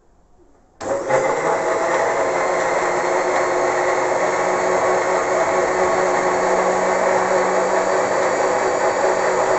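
Inalsa mixer grinder blending kiwi and milk into a shake: the motor switches on less than a second in, runs loud and steady at an even pitch, then cuts off suddenly.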